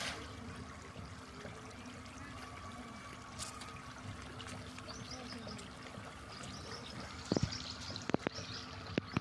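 Water splashing and churning as a dense crowd of farmed fish thrash at the pond surface, feeding. A splash right at the start, and a few sharp knocks near the end.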